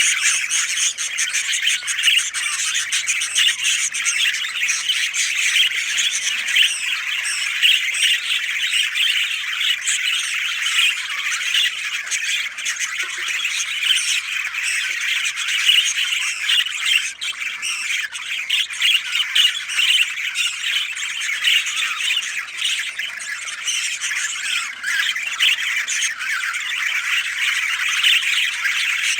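A flock of birds calling densely and continuously, many high chattering calls overlapping with no pause.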